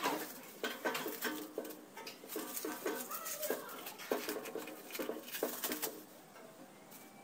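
Clinks and knocks of stainless-steel stove parts and a cast-iron burner being handled and fitted together. Short, low animal calls repeat among them.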